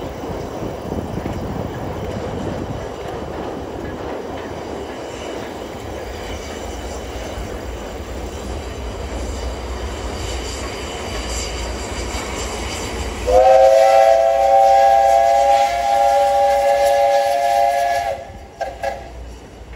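JR Kyushu 8620-class steam locomotive No. 58654 with its train passing, with a steady rumble of wheels on the rails. About two-thirds of the way in, the locomotive's steam whistle sounds one loud blast of several tones held for about five seconds, then two short toots near the end.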